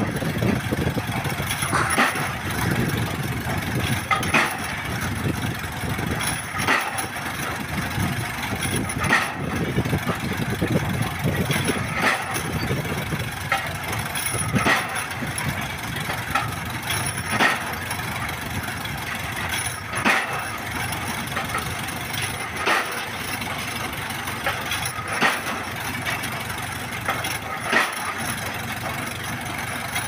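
Drop-hammer pile driver at work: its winch engine runs steadily while the hammer lands on a concrete pile with a sharp knock about every two and a half seconds.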